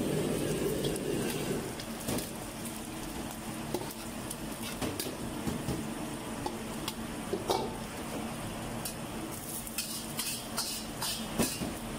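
Eggs sizzling in hot oil in a wok while a metal ladle stirs and scrapes, with frequent clicks of the ladle on the wok. Near the end a metal strainer knocks against the wok as sayur manis (sweet leaf) greens are tipped in.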